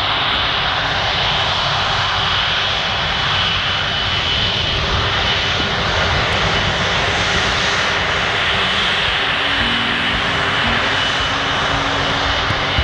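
Airbus Beluga XL's twin Rolls-Royce Trent 700 turbofans at taxi power as the aircraft rolls and turns past, a steady jet rush with a thin high whine.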